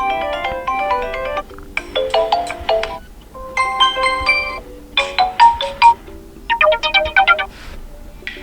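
ZTE Blade V50 smartphone ringtones playing: short electronic melodies of bright, stepped notes, in about five phrases of a second or so each with brief pauses between.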